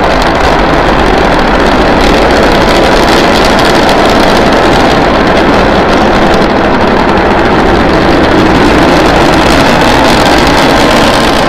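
Starship prototype's Raptor rocket engines firing during ascent, a loud, steady, dense rushing noise that holds without a break.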